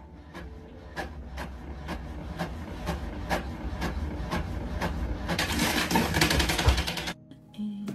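Inkjet printer printing: a steady mechanical hum with regular clicks at about three a second, turning into a denser hissing whir near the end.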